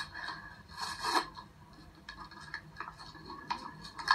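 Short rubbing and scraping noises with a few light clicks, a little louder about a second in.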